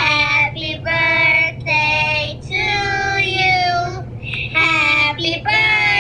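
Three young girls singing together in drawn-out, held phrases, heard through a phone's speaker on a video call, with a low steady hum underneath.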